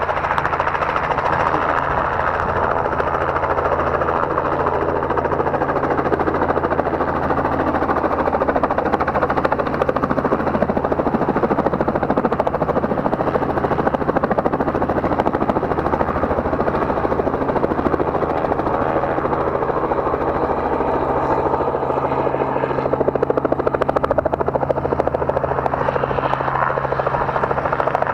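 Small two-bladed helicopter flying low and close, its rotor and engine making a steady drone.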